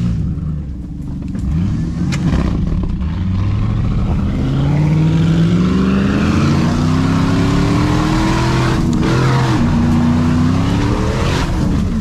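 Pickup truck engine accelerating hard, its pitch climbing steadily for several seconds, dipping briefly about three-quarters of the way through, then climbing again near the end. A few short knocks sound in the first seconds.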